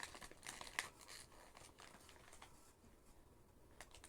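Faint crinkling and rustling of plastic packaging handled by hand as a blind-box figure is unwrapped, mostly in the first second or so, then near quiet with one soft click near the end.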